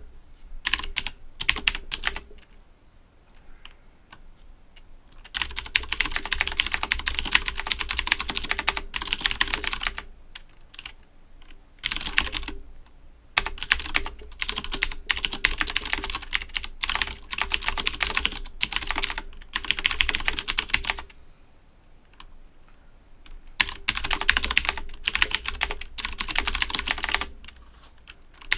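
Owltech OWL-KB109BM II mechanical keyboard with clicky Cherry MX Blue switches being typed on fast, in runs of rapid keystrokes broken by several pauses of a second or two.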